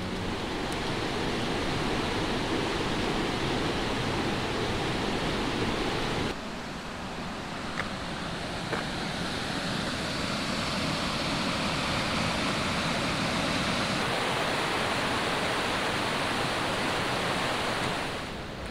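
Mountain stream rushing over rocks, a steady roar of water. The sound of the rush changes abruptly about six seconds in and gets quieter near the end.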